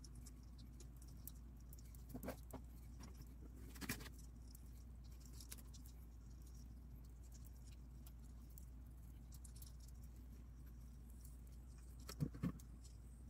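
Steady low hum with faint scattered ticks and scratches, and a few louder short taps about two seconds in, about four seconds in, and twice close together near the end.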